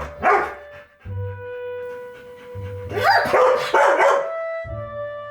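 A dog barking: a short bark just after the start, then a quick run of barks about three seconds in, over background music.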